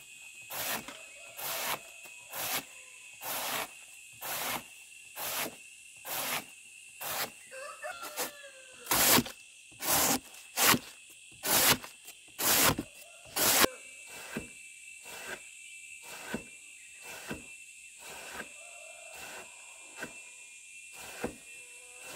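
Rhythmic rasping strokes, about one a second, loudest around the middle and fainter over the last third, over a steady high-pitched drone.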